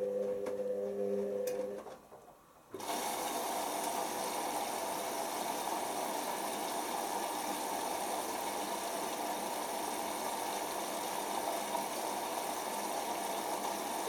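Hoover Optima OPH714D washing machine during its load-sensing phase: the drum motor hums steadily and stops about two seconds in. After a short pause, water rushes in steadily through the inlet while the drum stands still, stopping sharply near the end.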